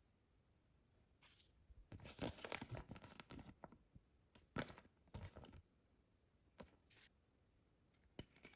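Packaging being torn open and crinkled by hand: a dense run of tearing and rustling from about two to three and a half seconds in, then a few short separate rips and crinkles.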